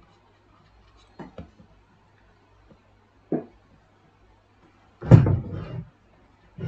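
A few brief knocks and thumps, the loudest about five seconds in, with a faint low hum between them.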